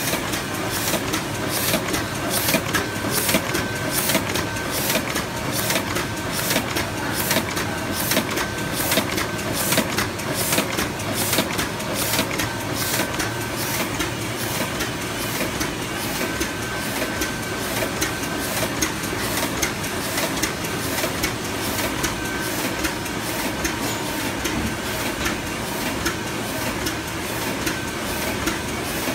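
Heidelberg GTO 52 four-colour sheetfed offset press running, its feeder and cylinders clattering in a steady, even rhythm of clicks over a continuous mechanical hum.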